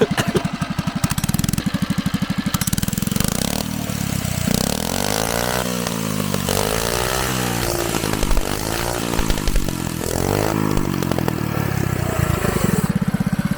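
Small 80cc mini-bike engine running with a rapid steady putter, then revving up and down about four times, its pitch rising and falling with each, before settling back to a steady putter near the end.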